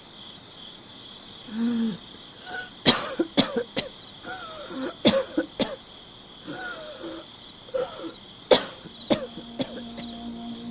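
A woman coughing harshly in repeated fits, with moaning between the coughs, the first about three seconds in. Crickets chirp steadily behind.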